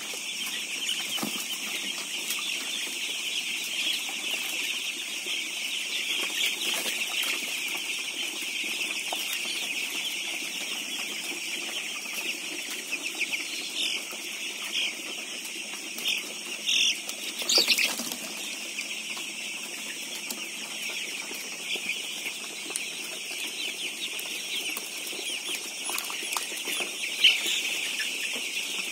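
A large flock of 15-day-old broiler chicks peeping in a dense, continuous chorus, with a few louder single calls standing out about halfway through.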